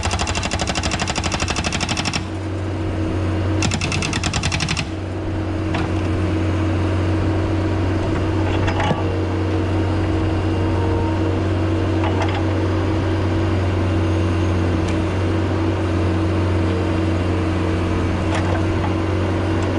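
Skid steer's hydraulic breaker hammering concrete in rapid strokes, in two short bursts in the first five seconds. After that the skid steer's engine runs steadily, with a few light knocks.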